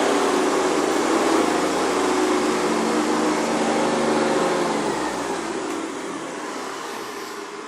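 Hoover Convertible upright vacuum cleaner running with a steady motor hum. About four and a half seconds in its pitch starts to fall and the sound fades as the motor winds down after being switched off.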